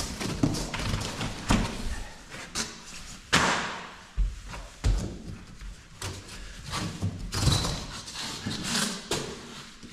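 Large interlocking laminated floor mats being lifted, flipped and dropped onto a concrete floor: a string of irregular thuds and scuffs, the loudest about a third of the way in.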